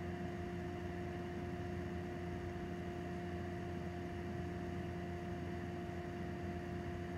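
Room tone: a steady low hum with a few constant pitches and a faint hiss, unchanging throughout.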